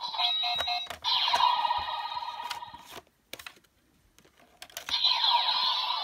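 Bandai DX Legendriver toy belt playing electronic sound effects and music through its built-in speaker, punctuated by sharp plastic clicks as cards are scanned and handled. The sound cuts out for nearly two seconds about halfway through and then starts up again.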